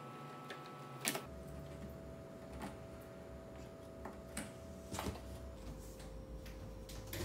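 Scattered light clicks and knocks as a paper backdrop is unhooked from a command strip on a foam-board light box, with one sharper click about a second in, over a faint steady hum.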